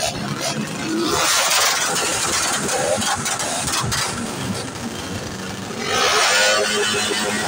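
Motorcycle engines revving in two loud bursts, the first about a second in lasting a few seconds, the second about six seconds in.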